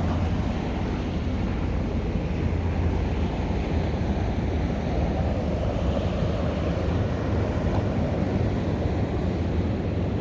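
Ocean surf washing over a rocky shore as a steady rush, with wind buffeting the microphone.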